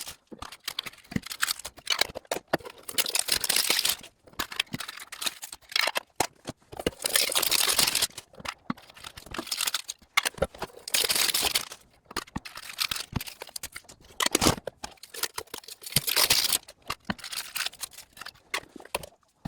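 Plastic packaging crinkling and tearing in repeated bursts as trading-card product is unwrapped, with abrupt breaks between bursts from fast-forwarded footage.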